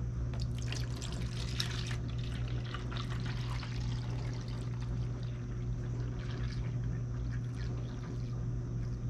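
Homemade grape juice being poured in a steady trickling stream, over a low steady hum.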